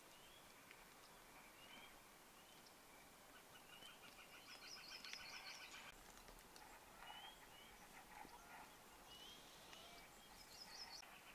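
Faint birdsong in a spring forest: several birds giving short rising chirps and quick trilled phrases, repeated every second or two.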